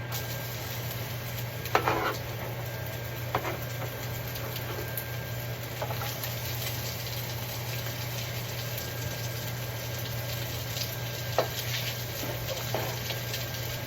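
Chopped onion frying in a pan with sizzling. A utensil knocks against the pan a few times as it is stirred.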